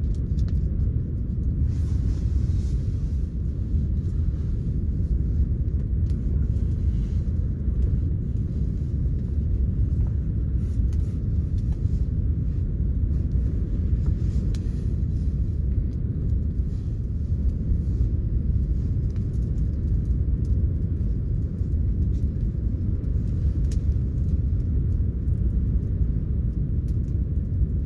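Wind buffeting the microphone: a steady low rumble with faint scattered clicks.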